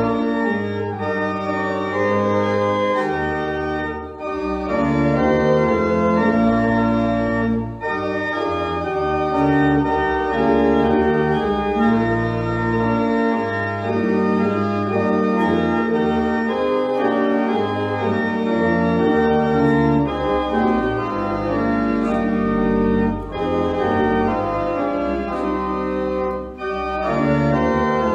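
Church pipe organ playing a slow piece in sustained chords that change about once a second, with a few short breaks between phrases.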